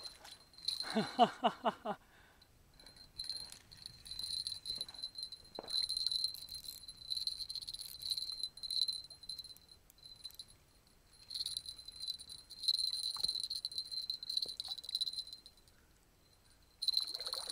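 A spinning reel's drag clicking in fast ratcheting runs as a hooked carp pulls line off. It comes in several spells of a second or more, with short pauses between them.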